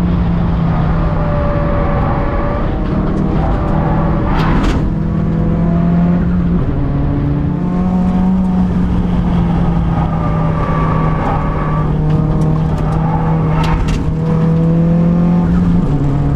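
Proton Waja track car's engine running hard at high revs, heard from inside the cabin, its pitch holding and then stepping several times. Two brief sharp sounds cut through, about four and a half and thirteen and a half seconds in.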